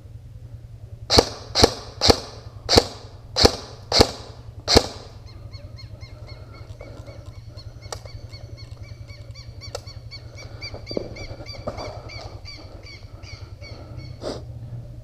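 Seven single shots from an airsoft electric gun fired one at a time, close to the microphone, a little under two a second. After them a bird calls in a rapid repeated series, over a steady low hum.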